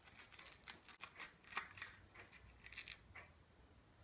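Faint scratchy scraping and small ticks of a yellow squash being handled and worked on a cutting board.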